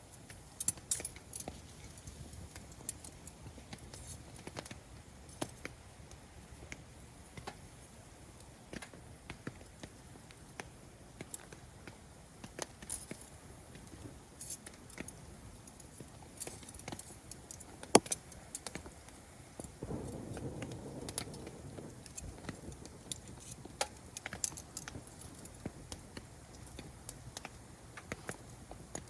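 Wood campfire crackling, with irregular sharp pops and snaps, one much louder pop a little past the middle. About two-thirds of the way through there is a brief low rush of noise.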